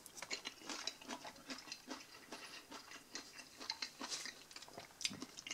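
Someone chewing a mouthful of sauerkraut in barbecue sauce: a quiet, irregular run of soft, wet crunching clicks.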